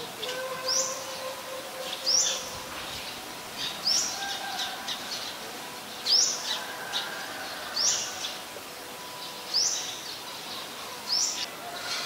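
Olive-backed sunbird (yellow-bellied sunbird) calling: a sharp, high note that drops in pitch, repeated seven times about every second and a half, with fainter chirps between.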